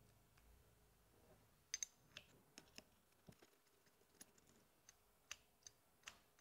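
Small, sharp metallic clicks and taps, about a dozen at irregular intervals, as a bike disc brake caliper, bolts and a hex key are handled against a machined aluminium plate. The loudest is a quick double click about two seconds in.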